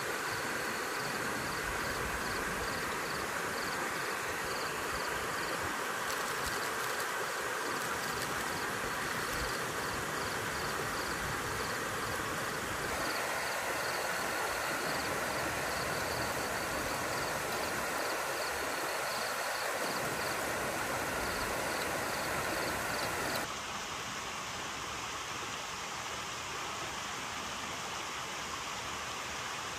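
Onions and whole spices frying in hot oil in a pot over a campfire, a steady sizzle, mixed with the rush of stream water and insects chirping in a fast, even pulse. The overall level drops abruptly near the end.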